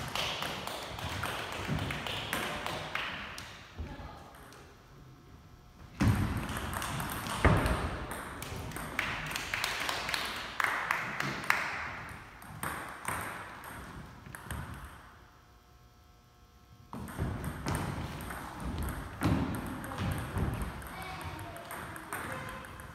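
Table tennis ball clicking back and forth off paddles and table in quick rallies, with short pauses between points.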